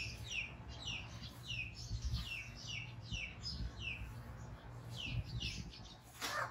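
A steady series of short, high chirps, each falling in pitch, about three a second. A sharp click comes near the end.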